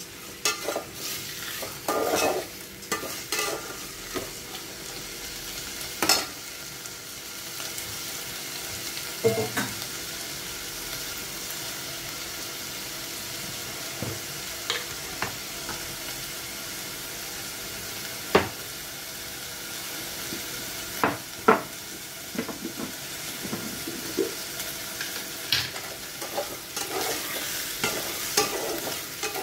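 Rice frying in ghee in a stainless steel pot over a high gas flame, sizzling steadily. A metal spatula scrapes and clinks against the pot at irregular moments as the rice is stirred.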